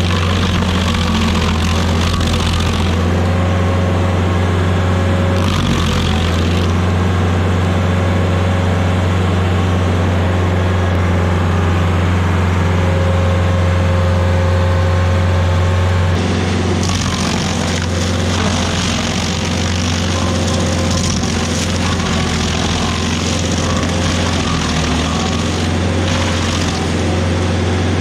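Rayco RG50 stump grinder's engine running steadily under load while its cutter wheel grinds a maple stump and its roots. A harsher, hissing grinding noise comes over the engine in stretches: briefly at the start, again around six seconds, and for a longer spell from about halfway to near the end.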